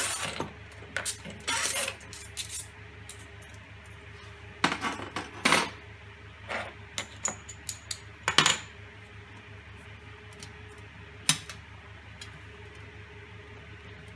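Metal washers and nuts clinking and clicking against each other and the threaded rods as they are handled and fitted, in short clusters of sharp clicks with a single click about eleven seconds in.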